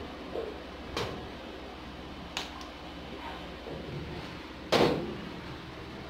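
A few short plastic knocks and clunks as a washing machine's water inlet hose and its plastic fitting are handled against the machine's plastic body. There are three knocks, the loudest about five seconds in, over a steady low hum.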